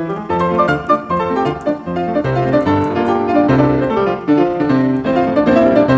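Piano music playing many quick notes.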